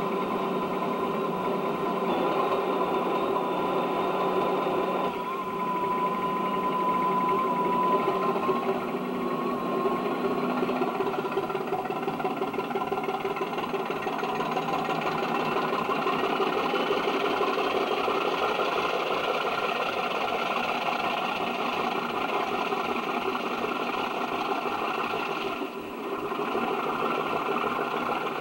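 British Rail Class 50 diesel locomotive's engine running steadily, with a whine that rises slightly partway through and a brief drop in level near the end.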